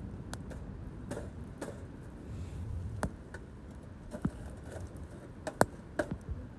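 Pine-cone bonfire crackling: irregular sharp pops and snaps, the loudest near the end, over a low rumble.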